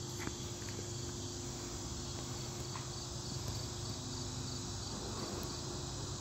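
Steady insect chorus, with a faint high chirp repeating evenly a few times a second, over a low steady hum.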